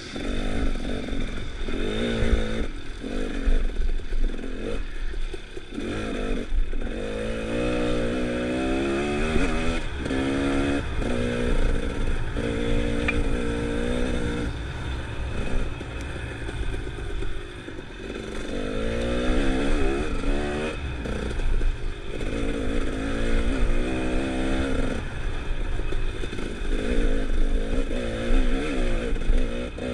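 Dirt bike engine under way, revving up and dropping back again and again as the throttle is opened and closed, with short lulls between pulls.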